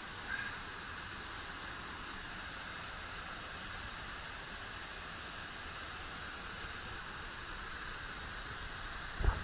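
Steady rushing of a waterfall, cascading water pouring over travertine ledges into a pool. Near the end a few dull knocks sound briefly over it.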